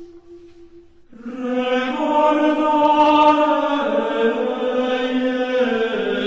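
Slow chant-like background music of long held voice notes. A held note fades out in the first second, then a new chord comes in about a second in and moves to new notes twice.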